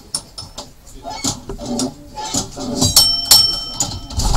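1934 tramcar running along the track, with a string of sharp clicks and knocks from the wheels and car body. A bell rings about three seconds in.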